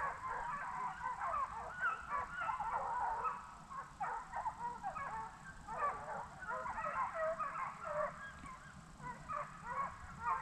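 A pack of hounds baying on a deer chase: many overlapping voices calling continuously.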